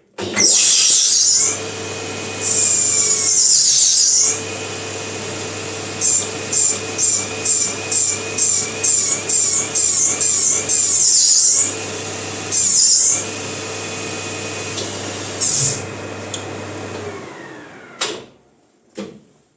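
Bicycle disc brake pads squealing loudly against a hot rotor spun in a Maximat metal lathe, in long screeches and then in a run of about three short squeals a second, over the steady whine of the lathe. Near the end the lathe winds down and stops, then a few knocks.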